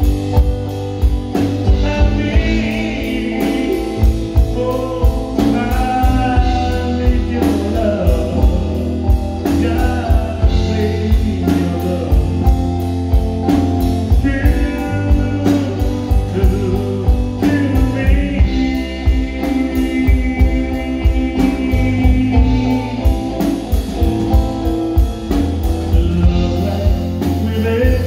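Live band music: a man singing lead into a microphone over guitar and a steady drum beat.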